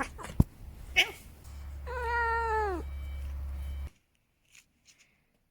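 An orange cat gives one drawn-out meow about two seconds in, its pitch dropping at the end, after a few sharp knocks.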